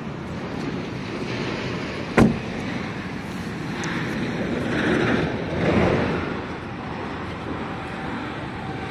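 Rear door of a Volkswagen Vento sedan shut once with a short, loud thud about two seconds in. Steady outdoor street noise runs underneath and swells briefly a little past the middle.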